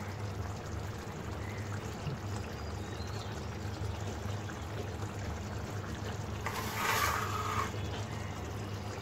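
Fish curry simmering in a metal pot: a steady low bubbling, with a brief louder rush of noise about six and a half seconds in.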